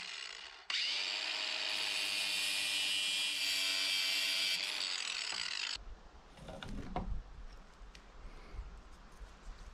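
Ryobi angle grinder with a cutoff wheel spinning up and cutting through steel wire rope, a loud, dense grinding whine for about five seconds that cuts off abruptly. After it, quieter rustling handling noise with a knock and a low rumble.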